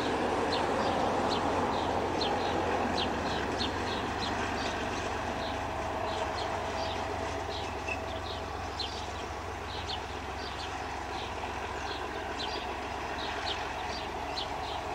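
Metre-gauge train running as it draws away, its noise slowly fading. A bird calls throughout in short, high chirps, several a second.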